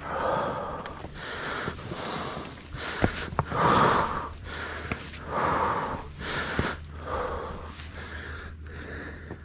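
Heavy breathing close to the microphone from a hiker climbing steep rock, about one loud breath a second, with a few sharp ticks in between.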